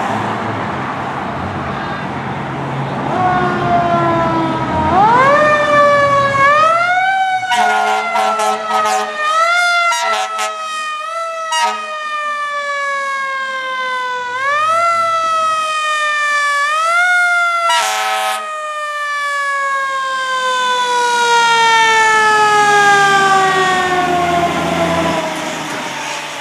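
Fire engine's mechanical Federal Signal Q siren wound up repeatedly, each time rising sharply and sagging slowly, then coasting down in a long falling wail near the end. A run of short air-horn blasts cuts in about a third of the way through, and one more comes past the middle.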